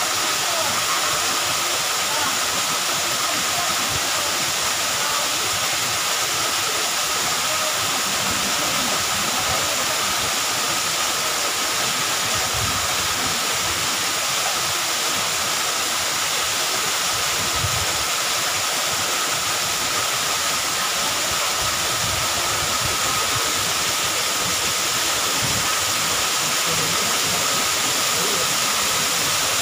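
Waterfall pouring down rock into a pool: a steady rushing and splashing of falling water, even throughout.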